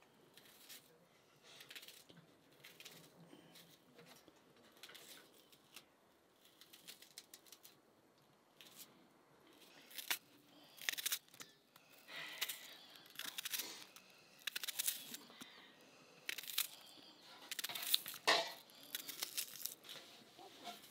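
Onions being cut by hand with a knife over a metal bowl: a run of short, irregular crisp cuts and tearing sounds that grows busier and louder about halfway through.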